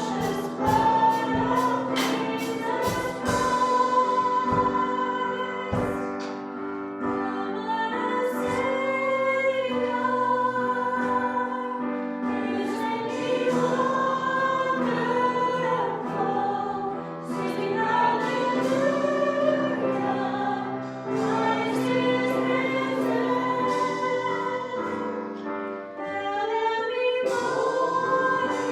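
Live worship band playing a song, with several voices singing a melody over held instrumental chords; there are percussive strikes in the first few seconds.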